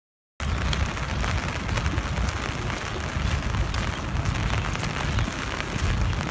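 Rain falling steadily on wet pavement, a dense hiss with many fine ticks and a low rumble underneath, starting abruptly just under half a second in.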